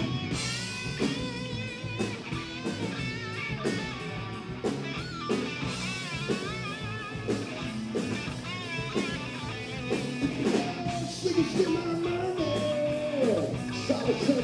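Live rock band playing: a guitar lead with string bends and vibrato over a steady drum-kit beat.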